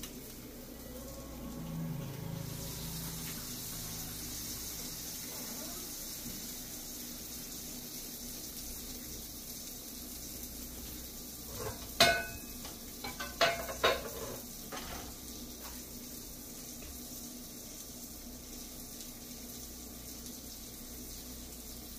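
Tofu and vegetable kabobs sizzling steadily on an electric countertop grill. A few sharp clicks of a utensil against the grill come a little past halfway.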